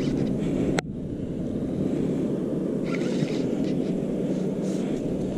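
Wind buffeting the camera microphone: a steady low rumble, cut off abruptly about a second in and resuming at once.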